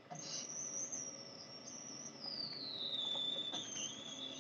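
A thin, high-pitched steady whine that glides down in pitch about halfway through and then holds at the lower pitch, over a faint low hum.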